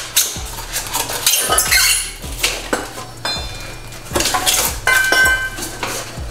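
Cast metal pipe bender dies knocking and clinking against each other as they are handled in their packing of polystyrene foam and bubble wrap. A run of sharp clatters, with a short high ringing tone about three seconds in and again about five seconds in.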